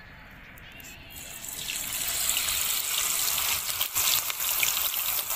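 Marinated rahu fish pieces frying in hot mustard oil in a steel pan over a wood fire. The sizzling sets in about a second and a half in as the pieces hit the oil, builds quickly and then goes on as a loud, dense crackle.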